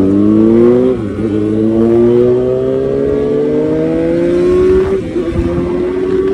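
Motorcycle engine accelerating through the gears. The revs climb, drop with an upshift about a second in, then climb slowly in the next gear for about four seconds before dropping again near the end.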